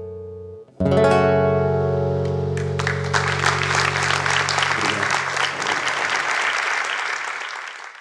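Acoustic guitar closing the song: one chord dying away, then a final strummed chord about a second in that rings out. Audience applause comes in about three seconds in and fades near the end.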